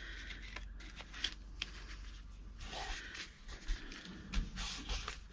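Paper being handled and pressed down on a work table: faint rustling and a few light taps and clicks, over a low steady hum.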